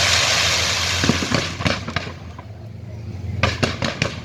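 Fireworks going off: a hissing rush for the first second or so, then clusters of sharp crackling pops about a second in and again near the end, over a steady low hum.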